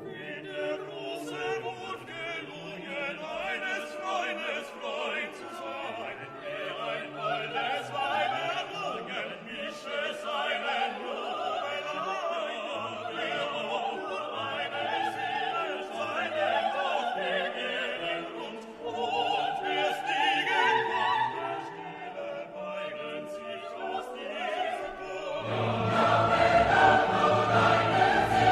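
Background classical music: operatic singing with orchestra, growing fuller and louder with deep bass notes entering near the end.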